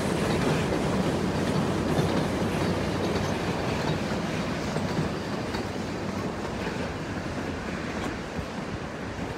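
Puffing Billy narrow-gauge train's wooden passenger carriages rolling across a timber trestle bridge, a steady rumble and rattle of wheels on rail that fades gradually as the train moves away.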